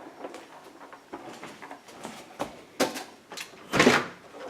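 Scattered light knocks and clatter from things being handled, with two louder clacks about three and four seconds in.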